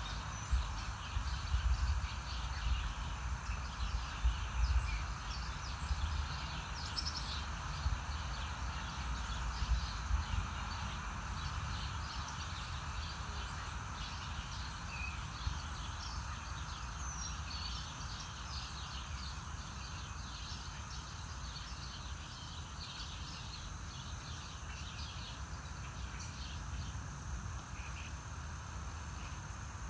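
Outdoor ambience: gusts of wind rumbling on the microphone, strongest through the first ten seconds, over a steady hiss, with scattered short, high bird chirps.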